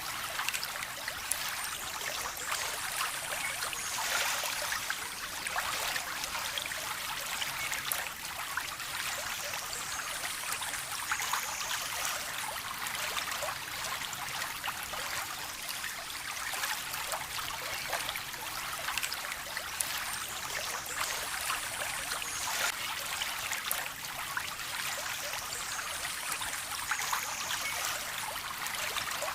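Water running steadily in a small stream, a constant trickling and splashing with fine droplet sounds and no tones.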